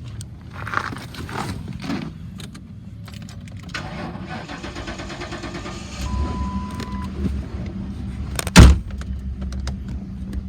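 2008 Ford Crown Victoria Police Interceptor's 4.6-litre V8 being restarted on gas poured into the intake, because the fuel pump is bad. The starter cranks, and about halfway through the engine catches and runs with a low rumble. There is a brief chime and one loud thump near the end.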